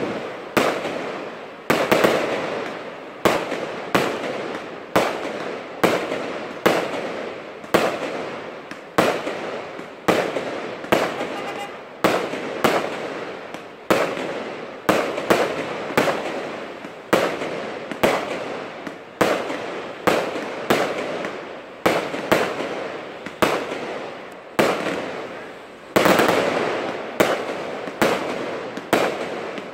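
Aerial fireworks bursting overhead in a rapid, regular string of bangs, about three every two seconds. Each bang trails away before the next.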